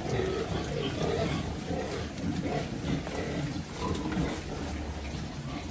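A crowded pen of young pigs grunting continuously as they jostle to feed.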